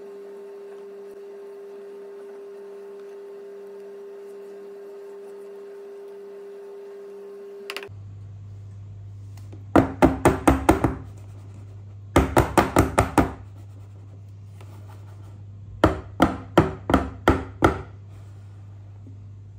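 A metal loaf tin of cake batter being rapped against the kitchen counter in three quick runs of about six knocks each, settling the batter and knocking out air bubbles.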